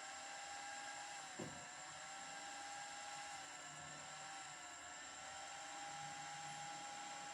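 CNC plasma cutting machine running: a steady hiss with a whining tone that shifts slightly in pitch every second or two, and one brief knock about a second and a half in.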